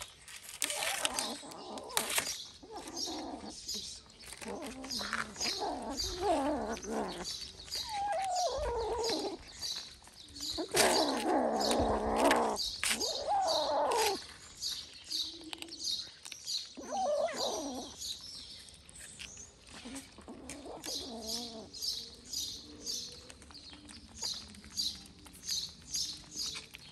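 Kittens crunching dry kibble close up, a quick steady run of crunches about two to three a second. Several kitten meows fall in pitch during the first two-thirds.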